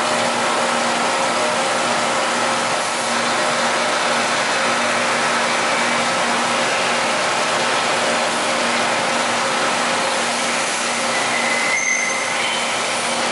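Giddings & Lewis CNC horizontal boring mill running under power: a steady mechanical hiss and hum with several constant tones, and a brief higher whine about eleven seconds in.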